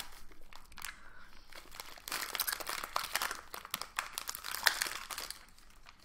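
Plastic candy packaging crinkling as it is handled, faint at first and denser from about two seconds in, with one sharper click near the end.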